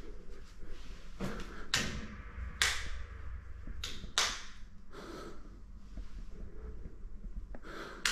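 Footsteps scuffing on a bare floor, a handful of short irregular steps, over a steady low rumble.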